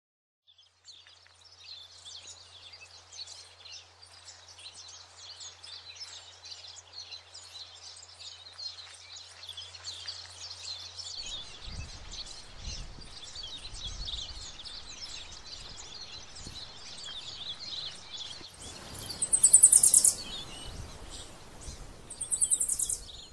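Many small birds chirping and twittering continuously. Twice near the end, a loud, high, rapidly pulsing buzz cuts in for about a second.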